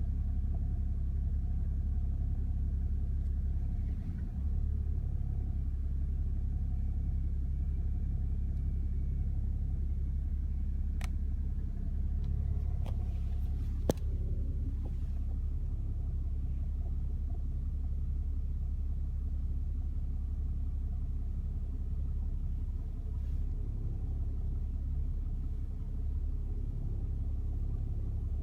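Steady low rumble of a 2008 BMW E61 idling. Over it come a few sharp, isolated clicks from behind the steering wheel: two or three close together, the loudest roughly halfway, and a fainter one later. This is the clicking the car makes when the active-steering wheel is turned slightly, most likely caused by a faulty active steering rack.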